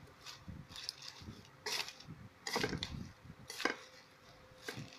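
Chopsticks tossing shredded rice paper salad in a metal basin: irregular soft clatters and scrapes against the metal, the loudest a little under two, about two and a half, and about three and a half seconds in.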